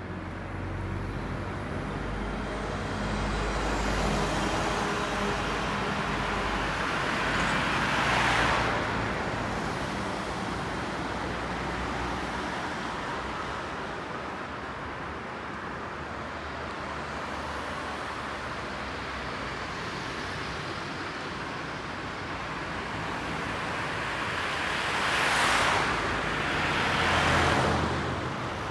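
Road traffic on a town street: cars driving past with tyre and engine noise. A low engine rumble is heard in the first few seconds, and cars pass close about eight seconds in and twice near the end.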